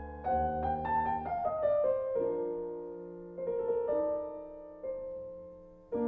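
Background piano music: a quick falling run of notes in the first two seconds, then a few single notes that ring and slowly fade.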